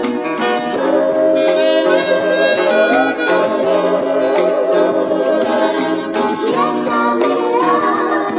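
Background music with a melody of long held and gliding notes over a light beat.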